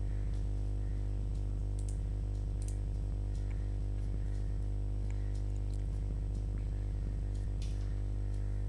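Steady low electrical hum with a stack of evenly spaced overtones, with a few faint, soft clicks scattered through it.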